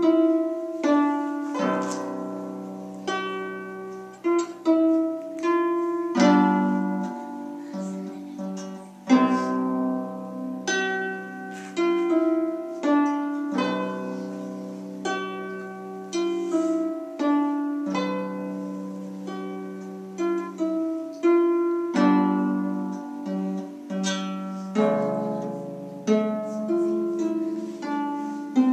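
Solo lever harp played by hand: a plucked melody over lower notes, each note starting sharply and ringing as it fades.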